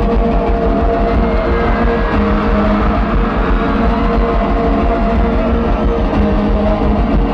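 Loud amplified acoustic guitar playing a live instrumental passage, strummed vigorously over steady held notes, with no singing.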